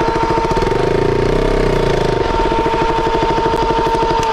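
KTM RC sport bike's single-cylinder engine idling with a rapid, even pulsing, while a steady high-pitched tone holds over it.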